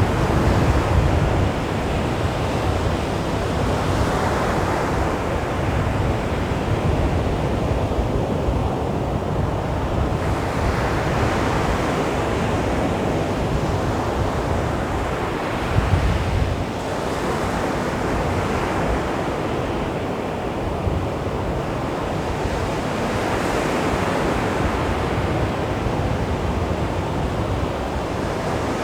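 Calm sea waves washing onto a beach: a steady rush of surf that swells and eases every few seconds.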